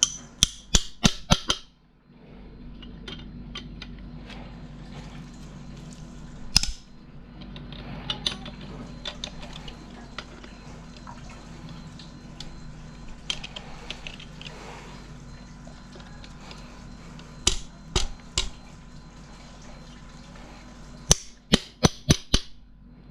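Hand tools working on a car engine: quick runs of sharp metal clicks, four to six at a time, over a steady low hum.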